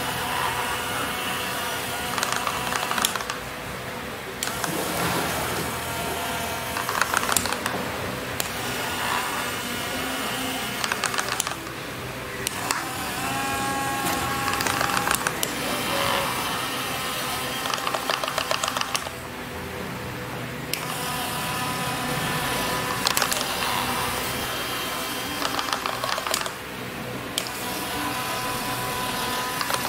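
Instrumental background music with shifting pitched notes and a rapid pulsing texture.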